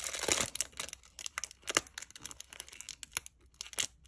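Masking tape being peeled off its roll and handled: a string of small, irregular crackles and ticks, busiest in the first second.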